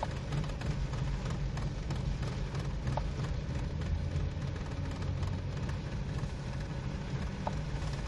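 Nissan Sentra's four-cylinder engine idling, heard from inside the cabin as a steady low hum, its idle speed sagging too low between about 600 and 800 rpm. The mechanic is almost sure the unstable idle comes from the engine itself, the camshaft timing shifting and losing position, typical of a stretched timing chain.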